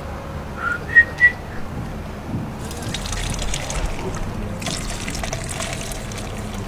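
Tea pouring from a vacuum flask through a plastic strainer into an enamel mug: a steady trickle that starts about two and a half seconds in. Before it, about a second in, two or three short high whistle-like squeaks.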